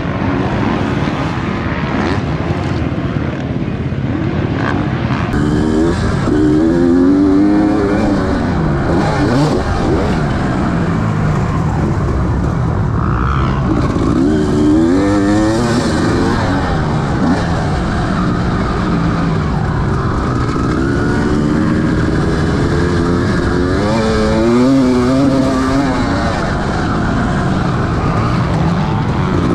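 Motocross motorcycle engines revving, the pitch climbing and dropping again every several seconds as the throttle opens and closes.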